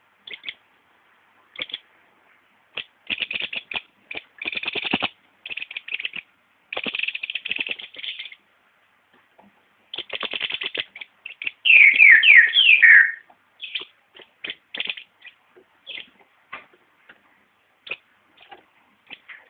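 Green-headed tanager calling: sharp high chips, rapid buzzy chattering runs, and, about twelve seconds in, the loudest part, a quick series of downward-slurred notes.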